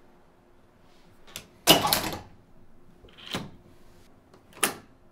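Ferry cabin door's metal latch and lock being worked: a click about a second in, then a loud clack and rattle of the door and latch, a softer knock around three seconds in, and a sharp click near the end.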